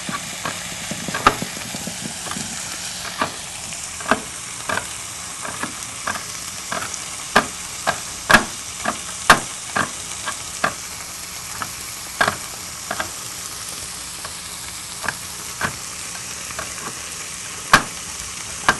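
Wire whisk clinking irregularly against a glass mixing bowl as it beats a biscuit-mix batter, over a steady sizzle from a frying pan on the stove.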